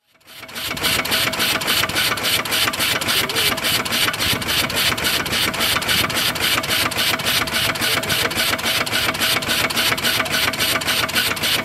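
1890s Armitage Herschell portable steam engine running steadily on steam piped from a 1911 Case steam tractor. It puffs and clanks in a fast, even beat of several strokes a second, fading in over the first second.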